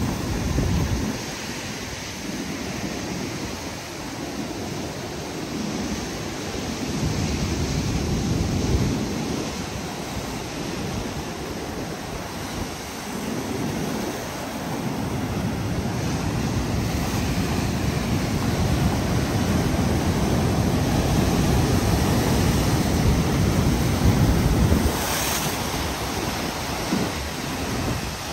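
Ocean surf washing in, with wind buffeting the microphone in uneven gusts and a louder hissing rush near the end.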